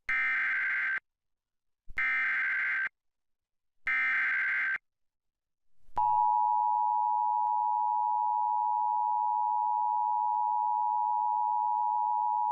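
Emergency Alert System signal: three one-second bursts of SAME header data, a harsh buzzy screech, about a second apart, then about six seconds in the steady two-tone EAS attention signal starts and holds. It announces a National Weather Service flash flood warning.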